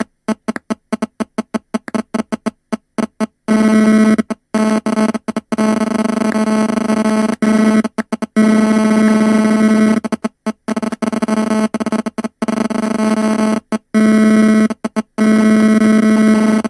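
Cell phone interference buzz, the GSM 'dit-dit-dit' picked up by nearby audio equipment: a harsh, pitched buzz that stutters in rapid short pulses for the first few seconds, then runs in longer stretches broken by brief dropouts.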